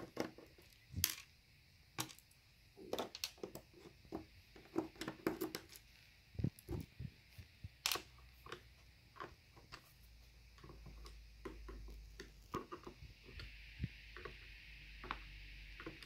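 Faint, irregular clicks and taps of a small screwdriver backing screws out of a Toshiba Satellite E45DW laptop's plastic bottom cover, with fingers handling the case.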